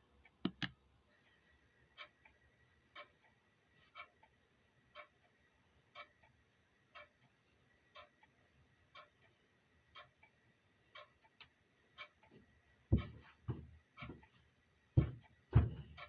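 Clock ticking steadily, about one tick a second with a softer tick between. Two louder, deeper thumps come just after the start and several more near the end.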